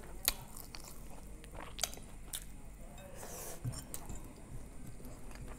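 Close-miked chewing of a mouthful of rice and steamed egg, soft and wet, with a few sharp mouth clicks and smacks.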